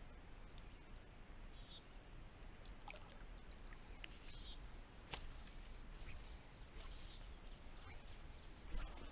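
Quiet lake ambience: a bird repeats a short high note every two seconds or so over a steady high hum. A few soft clicks and small splashes come from fly line being stripped in by hand and a popper being twitched on the water, the loudest near the end.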